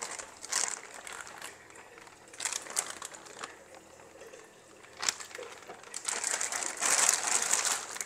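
Plastic fish-transport bag crinkling in irregular bursts as it is handled, the longest and loudest from about six seconds in to near the end.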